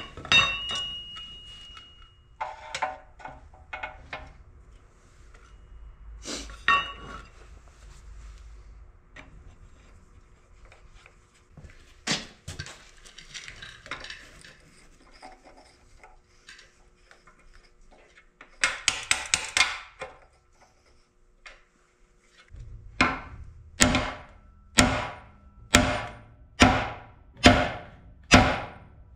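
Metal tools clanking and being handled while a bearing driver is set up in a CAT D4D engine block, then a hammer striking the driver about once a second for the last six seconds or so to knock out a thick balance-shaft bearing.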